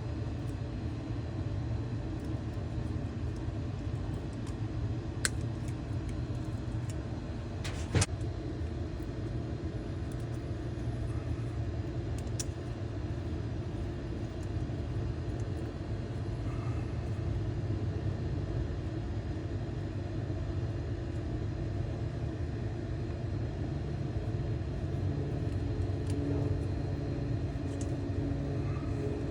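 A steady low rumble, with two sharp clicks about five and eight seconds in.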